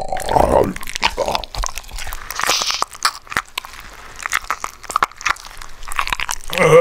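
Flesh Eating Zombie animatronic's sound effect of biting and chewing, an irregular run of crisp crunches as the zombie gnaws the severed arm in its hand. A groan trails off in the first moments.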